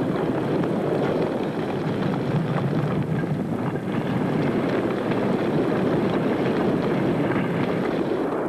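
Lava fountains of a fissure eruption: a loud, steady, low rushing roar with faint crackles over it.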